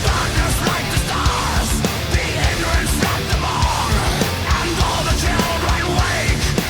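Heavy metal music with fast, driving drums.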